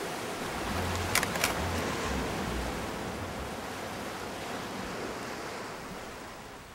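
Steady sea surf and wind at the shore, with two sharp clicks about a second in that fit a camera shutter being fired. The surf fades down near the end.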